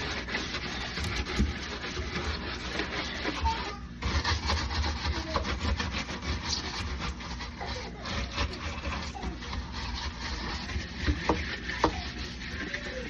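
Scrubbing a refrigerator's inside surfaces by hand, a continuous scratchy back-and-forth rubbing that pauses briefly about four seconds in.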